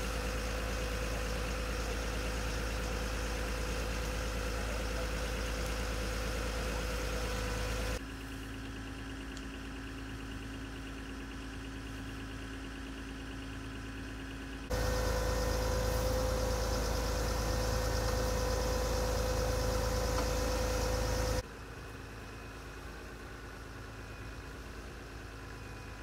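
Fire engine running steadily, a constant hum with a steady whine in it. The sound drops, jumps back up and drops again in sudden steps.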